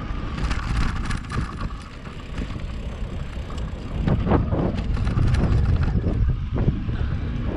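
Wind buffeting the microphone while riding an electric mountain bike, with tyre rumble and a few bumps and rattles from the trail about halfway through.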